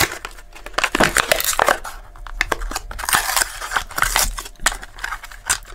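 Matchbox blister-card packaging being torn open: card tearing and the plastic blister crackling, with irregular clicks and rustles.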